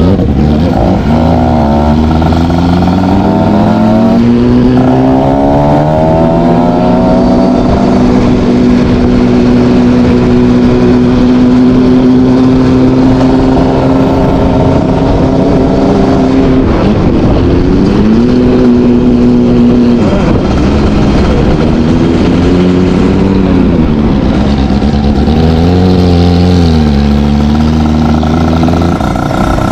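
ZX 300 R motorcycle's exhaust note. Its engine pitch climbs in steps over the first several seconds and then holds steady for about ten seconds. It drops sharply twice and rises and falls repeatedly near the end.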